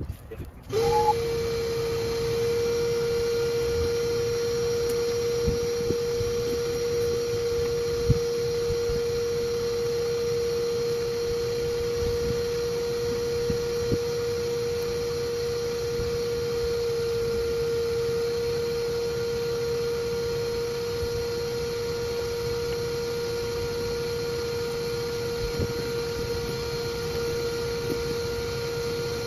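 Bee vacuum motor switched on about a second in, then running at a steady, constant pitch, with a few small knocks over it.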